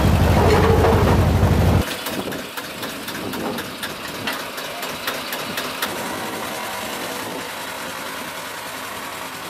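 A loud low rumble cuts off about two seconds in. After it, a small railway engine runs steadily, with scattered sharp clicks and knocks over the next few seconds.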